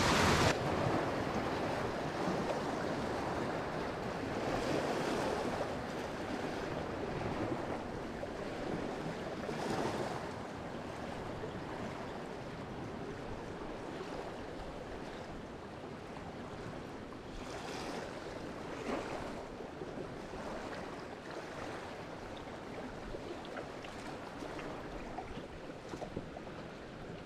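Steady rush of river rapids, louder for the first several seconds and then quieter, with a few soft splashes of canoe paddle strokes in the water.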